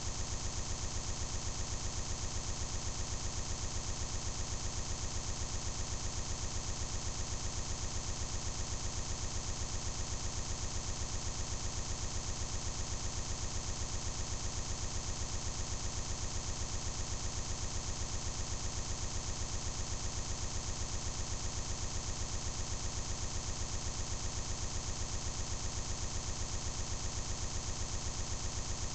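A steady, evenly pulsing digital buzz that never changes: a tiny scrap of audio looping over and over, the sound of a corrupted recording.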